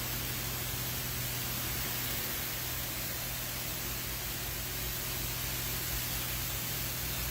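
Steady, even hiss with a constant low hum underneath, unchanging throughout.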